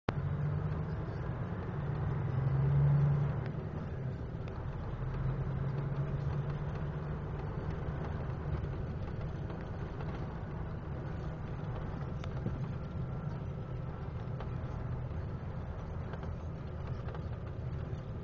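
Truck's diesel engine running at low speed, heard from inside the cab, as a steady low hum that swells louder about two to three seconds in.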